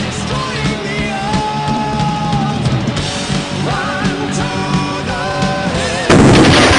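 Rock music with a singer and drums; about six seconds in, a loud oxy-acetylene gas explosion goes off over it, suddenly and much louder than the music.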